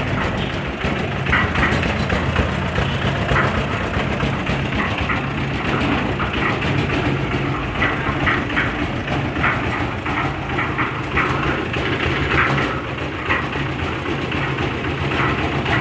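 An engine running steadily at a low pitch, with scattered short, sharp sounds over it.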